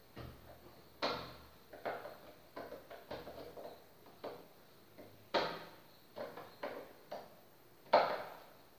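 Hand work inside a wall-mounted electrical box: a string of irregular sharp knocks and clicks, the loudest about eight seconds in.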